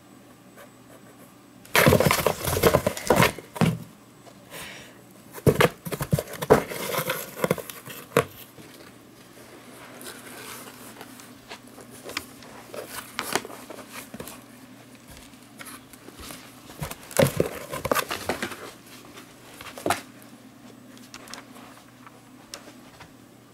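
Cardboard box scratching and rustling in three bursts of scrabbling as a kitten moves and paws about inside it.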